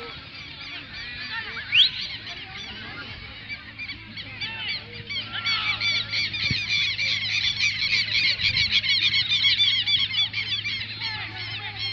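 A flock of birds calling, many short high calls overlapping in a chattering din that swells about five seconds in. A single sharp rising squeal near the start.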